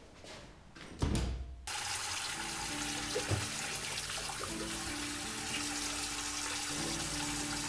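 A low thud about a second in, then a tap suddenly running full into a sink as hands are washed under the stream, a steady splashing rush. Music with long held notes plays underneath.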